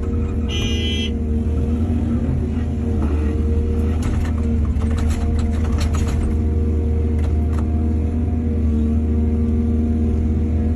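Heavy diesel excavator engine running steadily under load, with clanks and scrapes of the bucket and soil for a couple of seconds in the middle. A brief high-pitched squeal sounds about half a second in.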